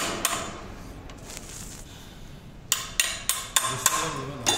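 Small loose steel parts clinking and clattering as they are handled and sorted by hand. There are a couple of clinks at first, then a lull, then a quick run of sharp clinks, about four a second, through the second half.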